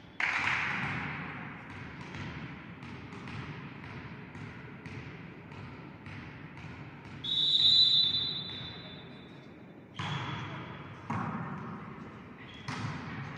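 A sudden loud burst of noise at the start fades out, then a volleyball is bounced on the hall floor about twice a second. A referee's whistle blows for about a second and a half, the loudest sound, signalling the serve. Sharp ball hits follow about ten and eleven seconds in and again near the end as the rally is played.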